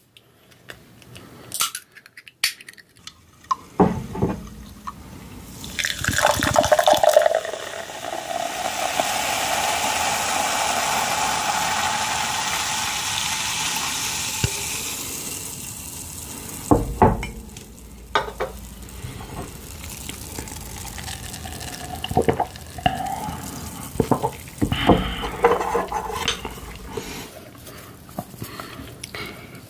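Cola opened with a few clicks, then poured from a can into a glass beer mug: a steady pour with a fizzing hiss for about ten seconds. Then a knock as something is set down on the table, followed by a wooden spoon clinking and scraping in a ceramic soup bowl.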